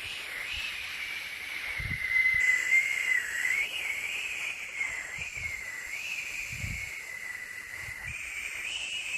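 Steady white-noise hiss with a whistling tone that wavers slowly up and down in pitch, and a few faint low thumps.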